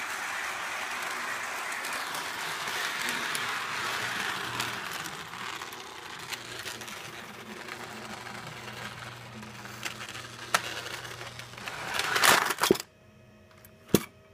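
HO-scale model train running on sectional track: a steady whirr of the small motor and wheels with scattered clicks. Near the end a louder rushing noise builds and cuts off suddenly, followed by one sharp click.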